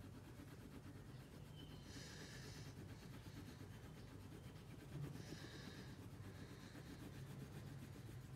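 Faint scratching of a wax crayon rubbing on paper as a drawing is coloured in, heard most clearly in two short spells about two and five seconds in, over a low steady hum.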